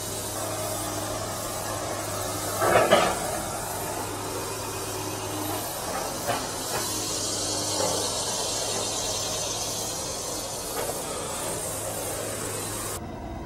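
Steady high-pitched drone of insects in summer brush, swelling a little in the middle and dropping away near the end, with a brief louder noise about three seconds in.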